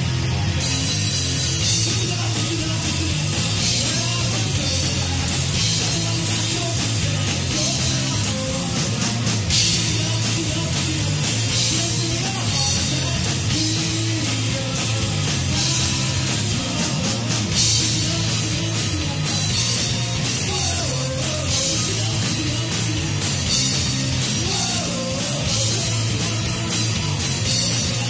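Live rock power trio playing loudly and without a break: hollow-body electric guitar, electric bass and a drum kit with crashing cymbals, with vocals over it at times.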